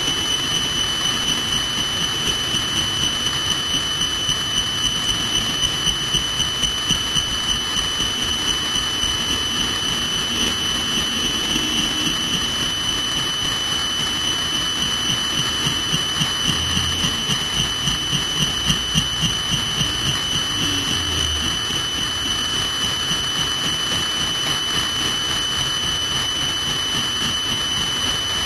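Helicopter running on the ground: a steady high turbine whine over a regular pulsing beat from the turning rotor.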